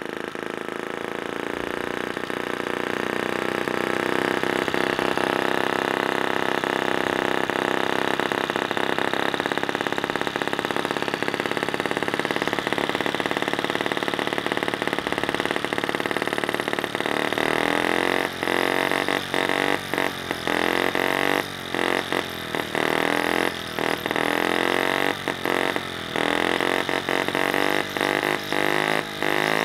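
Small split-cycle two-stroke model engine running steadily, its sound building over the first few seconds. From about seventeen seconds in the running is broken by frequent brief, irregular drops.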